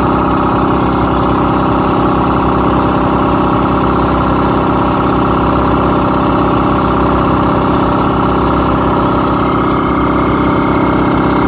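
Air compressor running steadily as it pumps up its tank, with the tank pressure nearly at the point where the pressure switch cuts it off.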